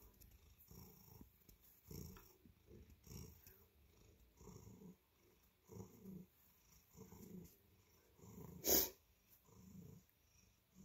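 Domestic cat purring, a faint low rumble that swells and fades about once a second. Near the end there is one brief sharp click, the loudest sound.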